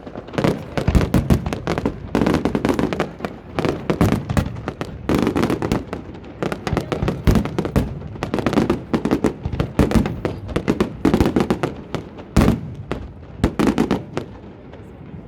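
Fireworks display: a dense, continuous string of bangs and crackles from exploding shells, with one especially loud bang about twelve seconds in. It thins out near the end.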